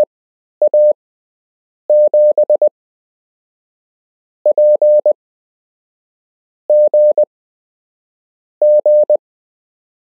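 Morse code practice tone, one steady beep keyed in quick groups of dits and dahs with pauses of a second or two between characters: random amateur radio call signs sent for copying practice.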